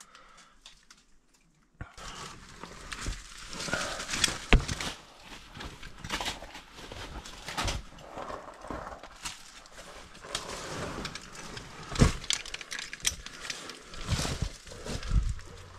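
Irregular rustling, scraping and sharp knocks of someone moving and handling gear over loose rock, starting about two seconds in.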